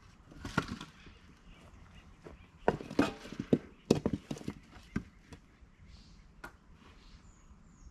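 Irregular hollow knocks and clunks of cut firewood rounds being handled and dropped, densest in the middle; the battery chainsaw is stopped.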